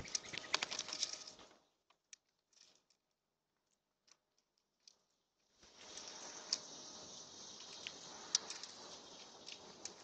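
Birds' wings flapping close by as mourning doves and other birds fly on and off a seed feeder, with a loud thump at the very start and sharp clicks of beaks and feet on the feeder. The flapping dies down after about a second and a half, leaving scattered clicks, and picks up again around six seconds in.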